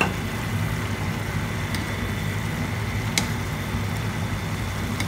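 Stir-fried vegetables and chicken sizzling in a pan as they are turned with a wooden spatula, over a steady low hum, with a couple of light clicks of the spatula against the pan.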